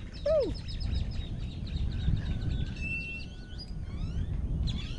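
Several birds singing and calling: fast ticking trills, a held whistle and rising whistled glides, starting with one loud, short, falling call. Wind rumbles on the microphone throughout.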